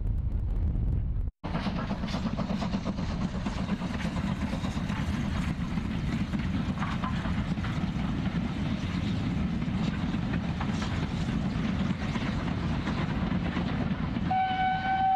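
Wind buffeting the microphone, cut off abruptly by an edit. Then a steam-hauled passenger train runs past with a steady rumble and the clatter of wheels on the rails. Near the end a train whistle starts one long steady note.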